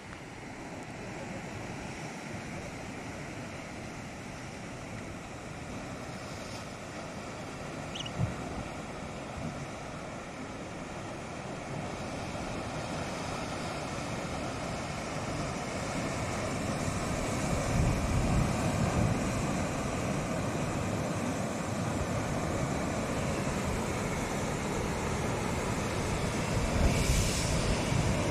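Rough sea surging and breaking against the concrete blocks of a harbour breakwater, a steady wash that grows louder, with heavier crashes about two-thirds of the way through and again near the end. Wind buffets the microphone, and there is a short knock about eight seconds in.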